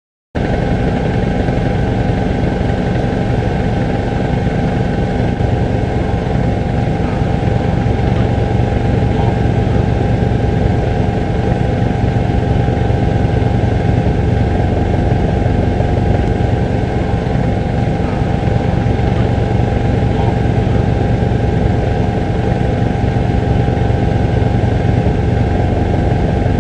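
Helicopter engine and rotor noise, heard from aboard: a loud, steady drone with a few held tones, cutting in suddenly just after the start.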